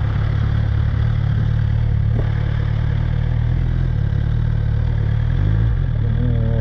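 Suzuki GSX-R1000 K7 inline-four engine running steadily, a constant low engine note with a slight wavering of pitch a little after five seconds in. A single short click sounds about two seconds in.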